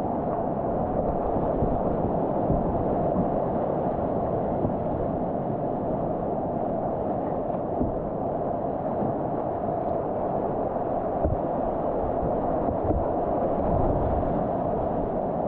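River water rushing steadily in the rapids, with scattered low knocks.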